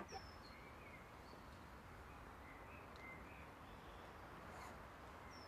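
Faint outdoor ambience: a steady low hiss with scattered short, high chirps a few times a second.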